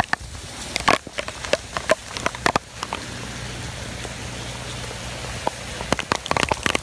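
Heavy hurricane rain pouring steadily, with irregular sharp taps of drops hitting close to the microphone. The taps thin out for a few seconds in the middle and come thick again near the end.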